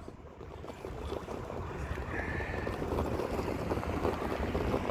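RC rock crawler climbing a pile of loose crushed stone: a steady crunch of tyres in the gravel and small stones trickling, getting louder after about half a second, with a brief thin whine a little after two seconds in. Wind rumbles on the microphone underneath.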